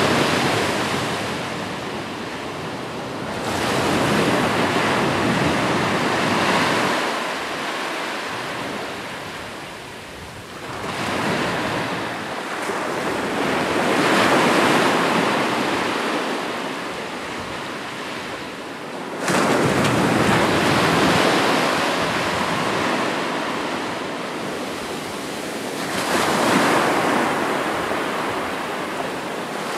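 Ocean surf: waves breaking on the shore one after another, the wash rising and falling every several seconds, with about five or six surges. The sharpest break comes suddenly about two-thirds of the way through.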